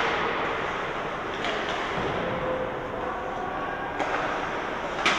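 Ice hockey rink ambience: a steady reverberant din with faint distant voices, broken by a few sharp knocks of sticks and puck, the loudest near the end.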